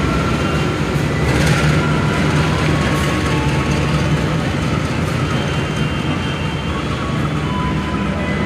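Indonesian long-distance passenger train coaches rolling past along the platform, with a steady low hum under the running noise of the wheels on the rails.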